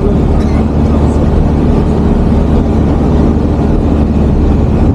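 Steady engine and road noise of a moving vehicle, a loud low hum under an even rush.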